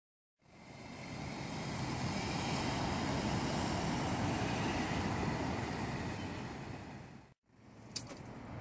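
Mazda3 hatchback driving slowly past; its sound swells and then fades away. It cuts off suddenly, and a short click follows inside the car near the end.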